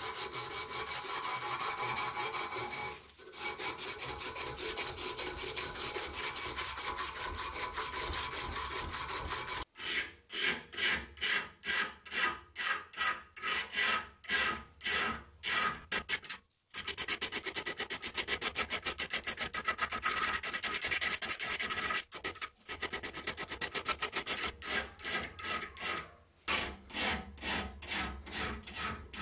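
Hand abrasion of a steel scissor blade. It starts as fast, continuous rubbing like an abrasive strip being worked back and forth, then turns into separate rasping strokes of a hand file, about two a second. The sound breaks off abruptly several times.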